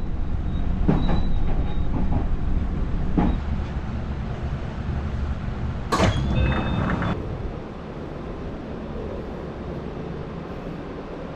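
Train running on rails: a heavy rumble with several sharp clacks and a couple of brief high squeals, dropping to a quieter steady noise about seven and a half seconds in.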